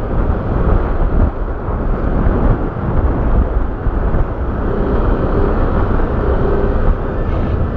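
Motorcycle riding noise: a steady rush of wind and road noise over the microphone, with the engine running underneath.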